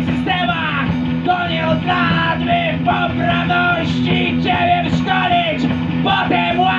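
Rock band playing live: electric guitars, bass guitar and drum kit, with a repeated phrase of gliding notes over steady low notes.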